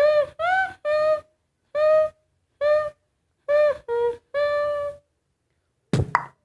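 Beatboxer's mouth sounds: a string of about eight short hooted, hum-like notes on a steady pitch with brief gaps between them, then sharp percussive beatbox hits starting near the end.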